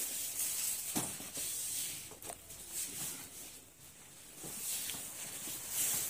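Quiet room tone: a steady hiss with a few faint clicks.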